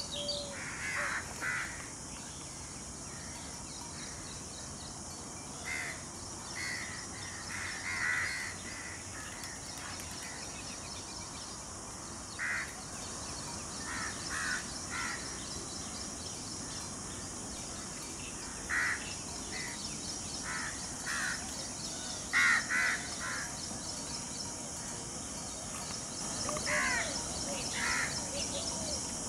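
Harsh bird calls, short and repeated in twos and threes every few seconds, over a steady high-pitched hiss.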